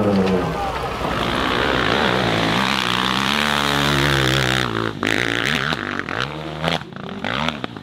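Dirt bike engine revving hard under load on a steep, rocky hill climb, its pitch rising and falling. From about five seconds in the engine fades and a run of sharp knocks and clatters comes through.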